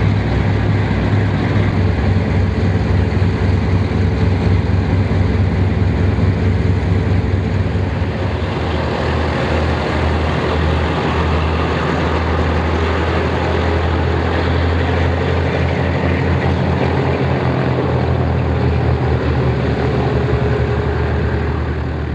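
Boeing B-29A Superfortress's four Wright R-3350 radial piston engines running at taxi power as the bomber rolls past, a loud, steady low drone with a pulsing beat that eases off near the end as it moves away.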